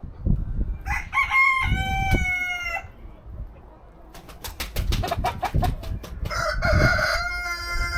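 Rooster crowing twice, each crow a long drawn-out call, with a fast series of short sharp sounds between the two crows.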